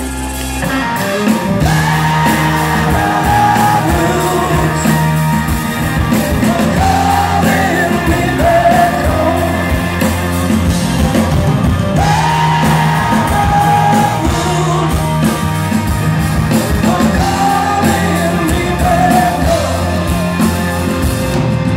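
Rock band playing live: a male singer's long, wavering held notes over acoustic and electric guitars, bass and drums. The vocal phrase repeats, starting again about halfway through.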